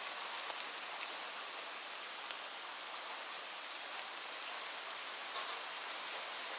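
Light rain falling steadily: an even hiss with scattered individual drops ticking on a surface.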